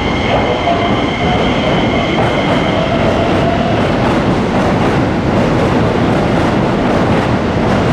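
Electric commuter train running along the platform: a steady rumble with wheels clicking over rail joints at a regular beat, and a faint high whine that fades out in the first couple of seconds.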